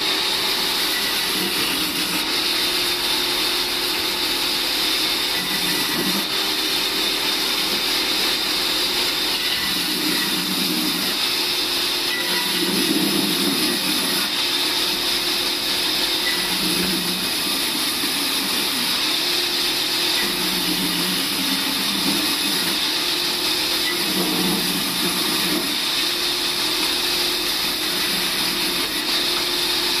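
Large band saw running steadily with a high-pitched hiss, while a deeper sound comes and goes every few seconds as the blade cuts through slabs of log pushed across its table.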